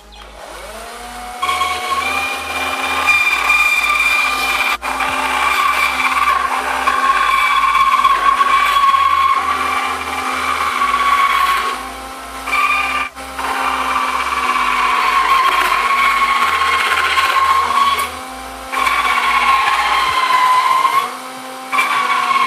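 Cordless drill spinning a small high-speed-steel circular saw blade on a mandrel, cutting through a plastic panel: a steady motor whine that winds up just after the start, sags in pitch as the blade loads, and eases off briefly a few times in the second half.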